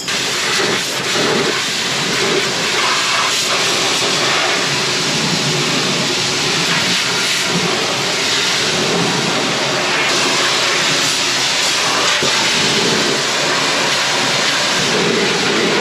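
A steam cleaner sprays a steady, loud, hissing jet onto a combine's transmission, washing off oil and dirt.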